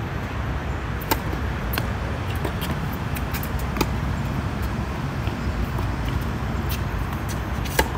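Tennis ball struck by racquets in a rally on a hard court: a sharp pop about a second in, more near two and four seconds and a loud one near the end, with fainter ticks between, over a steady low rumble.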